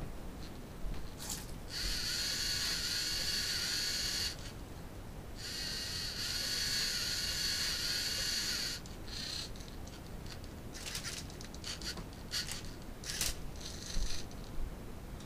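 LEGO Mindstorms NXT servo motors driving a Rubik's cube solver robot as it turns the cube. Two long runs of a steady high whine, each a few seconds long, are followed from about halfway through by a string of short clicks and brief whirs from the gears and cube mechanism.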